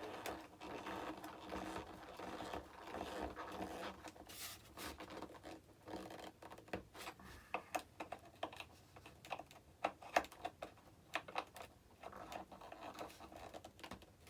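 Small clicks, taps and scratching of hands and a screwdriver working on the elevator and hinge of a Freewing F-35 foam RC jet, as the screws are loosened and tightened and the hinge is pushed into place. A rustling scrape at first, then a run of short sharp clicks from about four seconds in.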